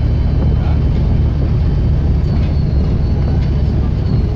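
Bus diesel engine running with a steady low drone, a thin high turbocharger whistle held above it that wavers slightly in pitch in the second half.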